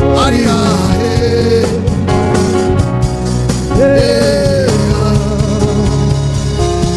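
Live church band music: a steady bass under a sliding lead melody, with one long held note about four seconds in.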